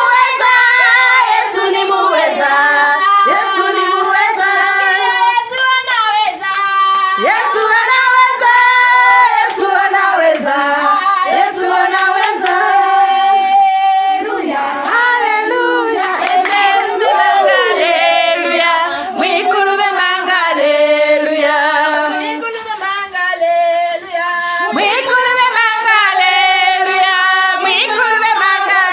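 Several women singing a song together, with hand claps keeping time.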